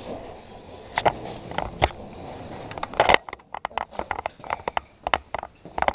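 A few sharp clicks and knocks, then a quick, uneven string of clicks from about halfway through.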